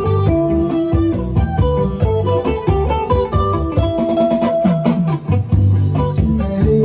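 Upbeat dance music played live on an electronic keyboard: a plucked, guitar-like melody over a steady bass beat.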